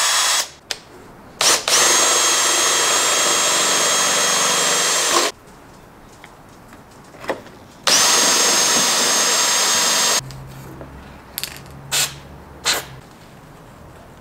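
Cordless drill boring holes through a car's sheet-metal A pillar: the motor spins up quickly to a steady high whine in two long runs of about three and two seconds, with a brief blip before them. A few clicks follow near the end.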